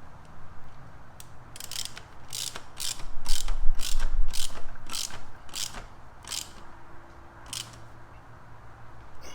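Hand ratchet clicking as it turns an 8 mm hex bit on an extension, driving home the bolt of a motorcycle frame slider: about ten clicks, roughly two a second, with a low rumble around the middle.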